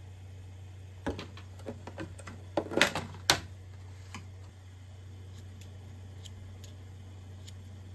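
Thin clear plastic food tub crackling and clicking as its lid is pried off, loudest around three seconds in, then a few faint clicks of kitchen scissors snipping pickled plum. A steady low hum sits underneath.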